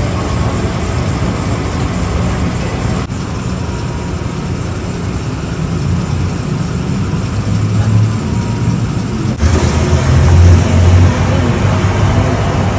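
City street noise with a vehicle engine running as a steady low rumble. The sound changes abruptly about three seconds in and again about nine seconds in, after which the low rumble is louder.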